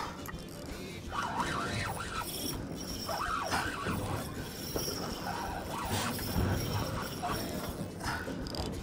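Spinning reel's drag buzzing out in several short runs as a hooked red snapper pulls line off the spool.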